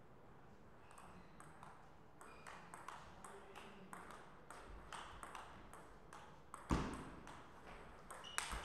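Table tennis rally: the celluloid ball clicking sharply off the rackets and the table, a quick irregular run of light ticks starting about a second in. A single heavier thump stands out near the end.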